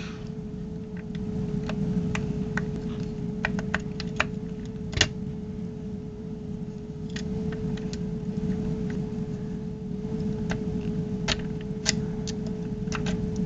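Lock picks clicking and scraping in the lock of a Brinks home security safe as it is being picked: irregular light clicks, a sharper one about five seconds in and a flurry near the end. A steady low hum runs underneath.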